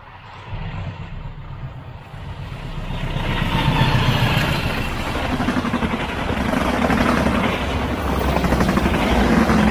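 Diesel locomotive passing close by with its engine running, followed by passenger coaches rolling past with a steady rumble of wheels on rail. The sound grows louder about three seconds in as the locomotive draws level.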